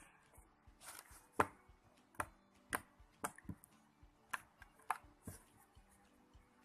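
Homemade shaving-cream slime being pressed and worked by hand, giving sharp clicking pops: about nine irregularly spaced clicks, mostly in the first five seconds. The slime is finished and no longer sticky.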